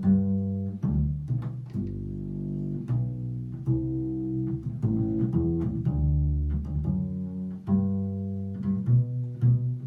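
Five-string acoustic double bass, tuned B-E-A-D-G, played solo: a slow melodic line of ringing notes, each starting with a sharp attack.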